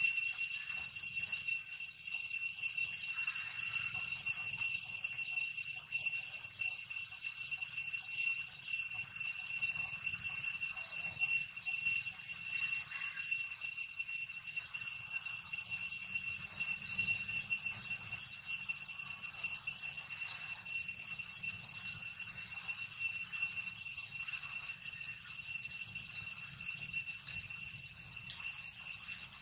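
A steady, high-pitched insect chorus: a constant whine at several pitches that does not change, over a faint low rumble.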